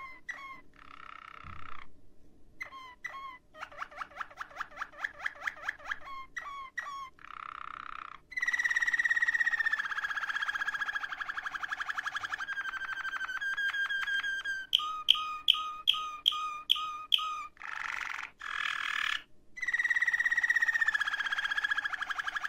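Domestic canary singing a long, varied song: quick trills, then a fast rolling trill held for several seconds, then a run of about six loud chirps, with another rolling trill starting near the end.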